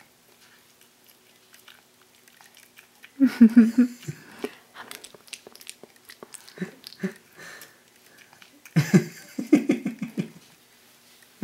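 A baby chewing and gnawing on a fresh-food feeder holding cucumber chunks: wet mouthing with small clicks. Two short bursts of voice come about three seconds in and again about nine seconds in.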